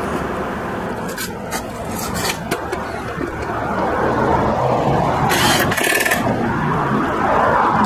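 Cordless drill-driver backing a screw out of a scooter's plastic nose panel, running in one short burst about five seconds in, with a few clicks of handling before it.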